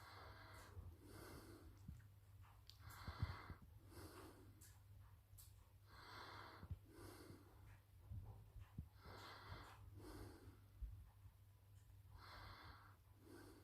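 A sleeping cat snoring faintly, in slow, even breaths. In-breaths and out-breaths alternate, one full breath about every three seconds.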